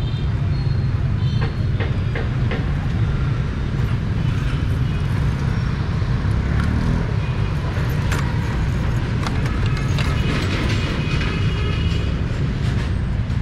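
Steady low rumble of street noise, with faint voices and scattered clicks over it.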